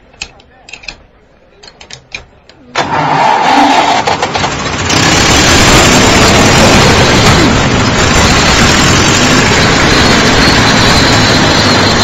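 Road roller engine starting: a few light clicks, then about three seconds in a sudden very loud, harsh, steady racket that swells again about two seconds later and keeps running.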